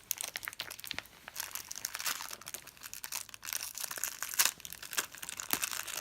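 Thin plastic toy packaging crinkling and crackling as it is torn and pulled open by hand, in a steady run of irregular crackles.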